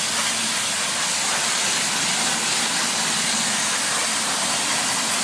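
Garden hose sprayer spraying water onto an outdoor air conditioner's condenser coil, a steady hiss of spray washing cottonwood and debris down through the fins.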